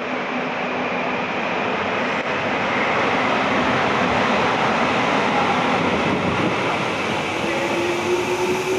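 Korail Gyeongchun Line electric commuter train starting to pull out of the station, heard from the platform behind the screen doors: a steady rumble of the running train, with the motors' tone rising slowly near the end as it picks up speed.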